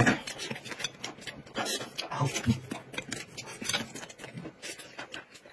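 Close-miked eating sounds: chewing and lip smacks on a soft steamed bun, with many quick wet clicks and a couple of brief low hums about two seconds in.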